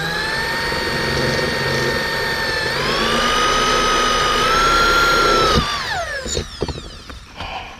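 Electric drill running steadily with a motor whine, speeding up about three seconds in, then released just before six seconds and spinning down with falling pitch; a few light clicks follow. It is boring the first, smaller hole that the big drill bit will then enlarge.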